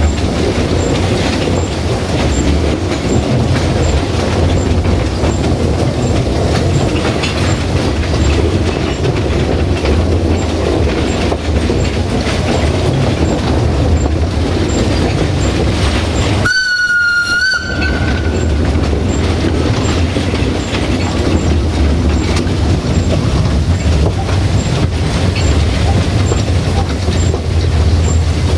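Narrow-gauge train of steam locomotive Mocănița 762.209 rolling along the track, a steady loud rumble with wheel-and-rail noise. About two-thirds of the way through, the steam whistle sounds once, a single steady note lasting about a second.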